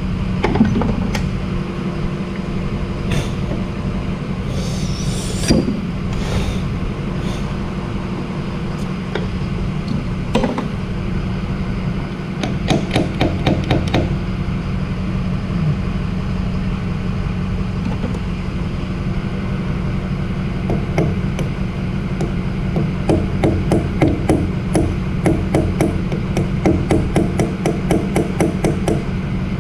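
Hammer tapping a punch against the steel head of a backhoe hydraulic cylinder, driving it past its snap ring. A few scattered blows come first, then a short run of quick strikes, about five a second, around halfway, and a longer run of strikes near the end. A steady low hum sits underneath.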